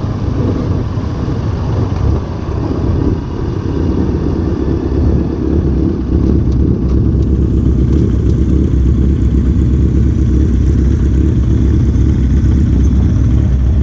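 Motorcycle engine running steadily on the move, a continuous low rumble that grows a little louder about six seconds in.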